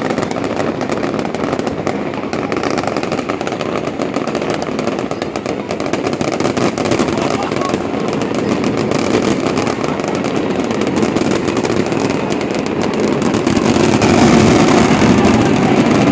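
Fireworks going off without pause: a dense, continuous crackling with bangs, getting louder about fourteen seconds in.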